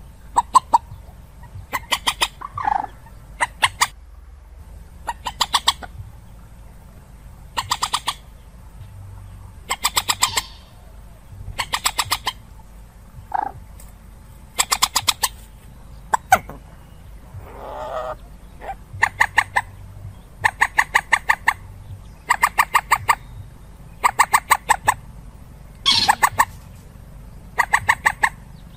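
Common moorhen calls, as played from a trapping lure recording: repeated bursts of rapid clucking notes, each burst under a second long and coming about every two seconds, with a few softer single calls in between. A faint steady hum lies underneath.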